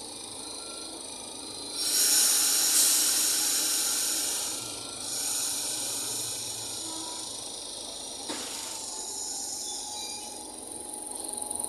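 A standing Toshiba electric train on the Urquiza line lets out a loud burst of compressed-air hiss about two seconds in, fading over a couple of seconds, then a softer hiss about five seconds in. A short click comes near eight seconds, and near the end the train starts to pull away.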